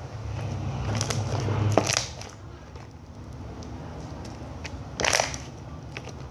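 Homemade glue slime being squished and stretched by hand, with crackly sticky sounds and two louder pops, one about two seconds in and one about five seconds in.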